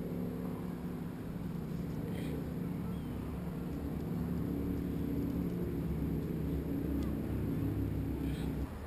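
A motor vehicle's engine running, a low steady hum that gets louder about halfway through and cuts off abruptly near the end.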